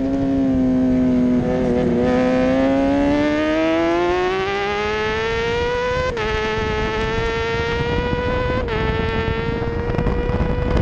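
Middleweight superbike engine heard from onboard, pulling hard out of a corner with its revs rising for several seconds, then dropping sharply twice, at about six seconds and again near nine seconds, as the rider shifts up.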